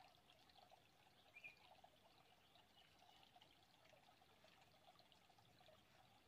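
Faint, steady trickle of shallow stream water running over stones, with one brief high chirp about a second and a half in.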